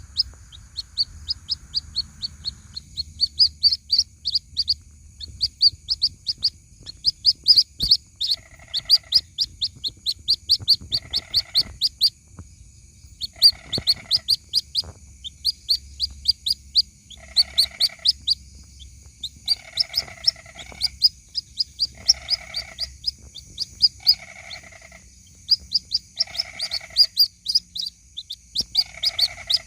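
White-breasted waterhen chicks peeping: fast runs of short, high, falling chirps, the calls chicks use to call their mother. From about eight seconds in, a lower repeated call of about a second comes every couple of seconds, over a steady high whine.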